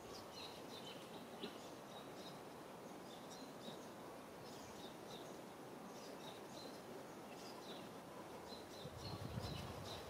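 Faint outdoor ambience: a steady hiss with small birds chirping over and over in short high notes. A low rumble comes in near the end.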